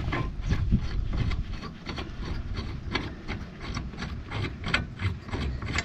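Hand-tool work on a car's wheel hub assembly: irregular metallic clicks and rubbing, coming faster in a quick run of clicks near the end.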